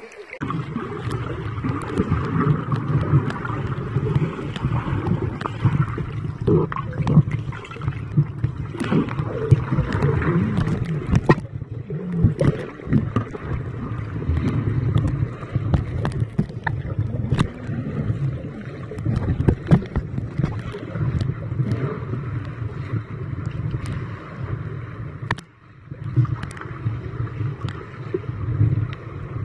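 Muffled water noise picked up by a camera held under water: a steady low rumble of moving water with scattered clicks and knocks, dropping away briefly about three-quarters through.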